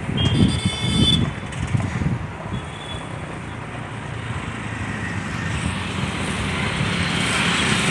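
Roadside traffic noise: vehicle engines running and vehicles passing, with low uneven rumbling in the first couple of seconds and a rise in noise toward the end as a vehicle comes by.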